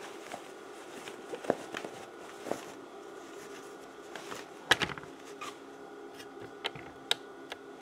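Fabric being handled and rubbed while a sewn bag flap is turned right side out and smoothed, with scattered light clicks and taps and one louder knock about five seconds in, over a faint steady hum.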